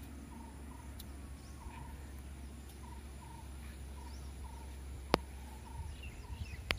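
Outdoor ambience with a small creature's short chirps repeating about twice a second over a low steady hum, broken near the end by two sharp clicks.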